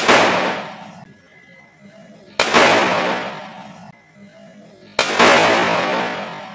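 Full-metal cork toy pistol firing cork caps: three sharp bangs about two and a half seconds apart. Each is a cork cap going off on the gun's metal pin, and each trails off in a long echo of a second or so.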